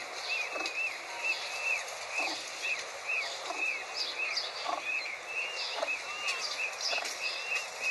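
Peachicks peeping without pause: short, high, arched peeps, about two or three a second.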